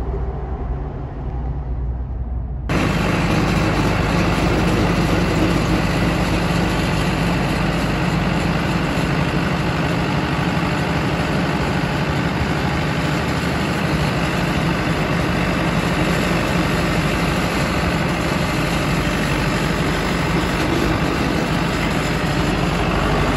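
Small crawler dozer's diesel engine running steadily, heard from the operator's seat. It comes in suddenly about three seconds in, after a quieter low hum.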